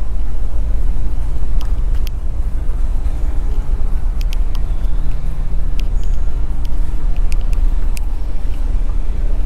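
Steady low rumble of a large ferry's engines, heard inside the ship, with a few light clicks scattered through it.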